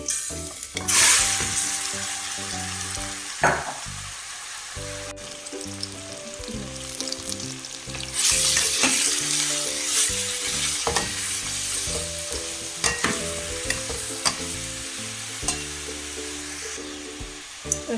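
Marinated chicken chunks going into hot cooking oil in a saucepan, sizzling loudly as they hit the oil about a second in and again about eight seconds in, then frying steadily. A few sharp knocks come through the frying as the chicken is stirred.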